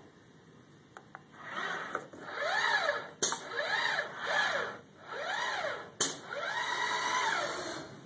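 Joint motors of a four-axis SCARA robot arm whining in a series of tones that rise and fall as the arm speeds up and slows down through each move, with two sharp clicks about three and six seconds in.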